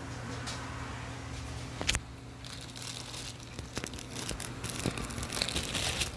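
Plastic packaging crinkling and tearing as it is pulled off a boxed aquarium light timer, with a sharp click about two seconds in.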